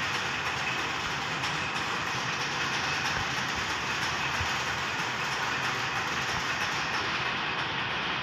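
Textile machinery running in a power-loom shed, with a warping machine winding nylon yarn onto a beam: a loud, steady, dense mechanical clatter.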